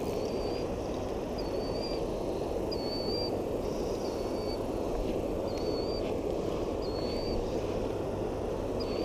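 Steady rush of flowing river water, with a bird repeating a short, high, wavering call about once a second.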